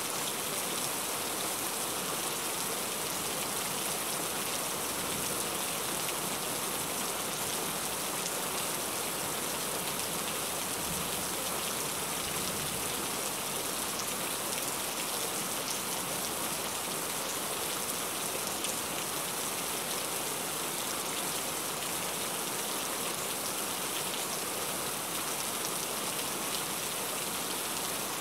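Steady rain pattering on a car's roof and windshield, heard from inside the cabin.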